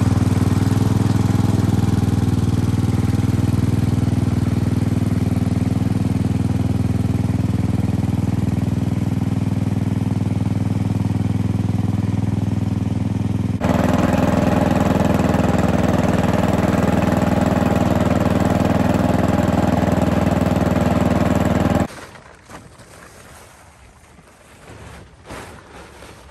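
Vintage Sears garden tractor's engine running steadily while it tows a trailer loaded with firewood, with an abrupt change in tone about halfway through. The engine sound stops suddenly near the end, leaving quiet with a few faint knocks.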